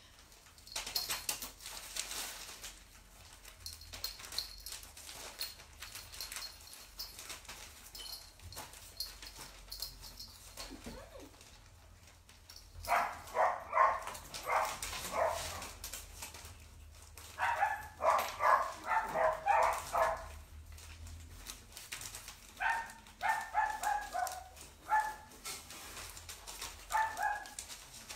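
A dog vocalizing in runs of short, whiny yips and grumbles, in several separate bouts from about halfway through, after a stretch of faint clicking and rattling.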